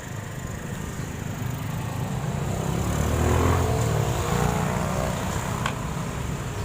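A motor vehicle passing close by: a rumble that builds to its loudest about three and a half seconds in, its engine note falling in pitch as it goes past, then easing off.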